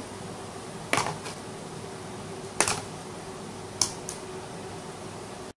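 Mercury-driven wooden tumbling automaton flipping down a flight of steps, its dowel ends knocking onto each step: three sharp knocks about a second and a half apart, each followed by a lighter tap. The sound cuts off abruptly near the end.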